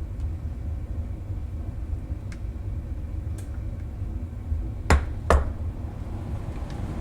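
Two sharp snaps about half a second apart, with a few faint clicks before them, as plastic cell holders are pried and broken away from a battery pack with a hand tool. A steady low hum runs underneath.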